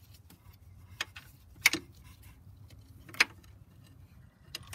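A few sharp metallic clinks of a long steel mounting bolt and the A/C compressor knocking against the engine's aluminium bracket as they are worked by hand. The loudest come about a second and a half and three seconds in.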